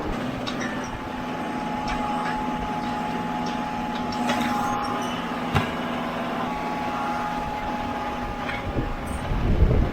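Tractor engine running steadily with a constant whine while round bales are loaded on a bale spear, with a sharp knock about halfway and a few louder clunks near the end.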